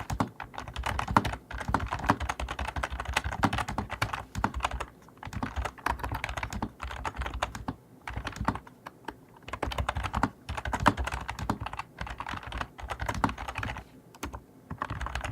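Keys of a NewMan GL800V2 gaming keyboard clicking under fast typing, close to the microphone, in rapid runs broken by short pauses.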